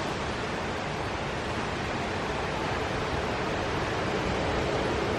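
Hurricane wind and rain making a steady, even rushing noise with no distinct events.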